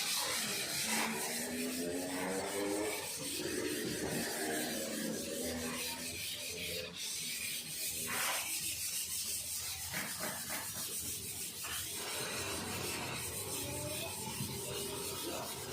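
Sandpaper rubbing over hardened body filler on a car panel, a steady scraping texture as the filler is sanded down thin.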